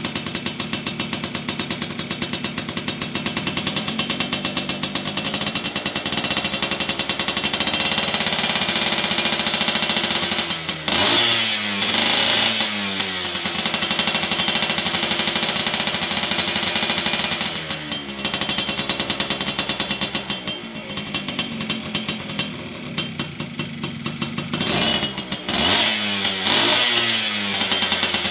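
Two-stroke motorcycle engine running through an aftermarket YY Pang exhaust, with a fast, rattling idle. The throttle is blipped several times, the revs rising and falling back, about midway and again near the end.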